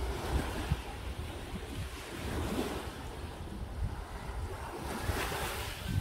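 Small waves washing onto a pebble beach, with wind rumbling on the microphone. The wash swells briefly about two and a half seconds in and again near the end.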